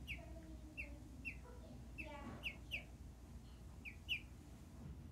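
A duckling peeping: short, high chirps at irregular intervals, several coming in quick pairs.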